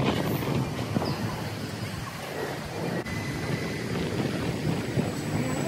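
Wind buffeting the microphone over steady street and traffic noise as a Hiroshima Electric Railway low-floor tram draws in to the stop. A faint high whine comes in during the second half.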